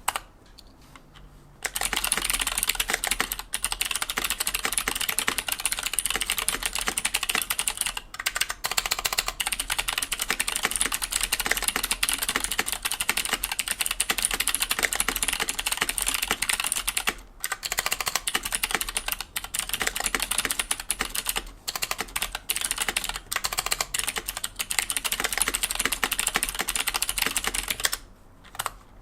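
Fast, continuous typing on a KBD75 mechanical keyboard with an aluminium plate, Gatistotle switches on the letter keys and Fosen switches on the modifiers. The clacking starts about a second and a half in, pauses briefly twice, and stops just before the end.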